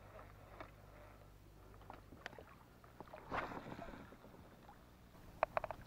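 Small knocks and clicks of fishing gear in a plastic kayak on calm water, with a brief rushing swish about three seconds in and a quick run of four sharp clicks near the end.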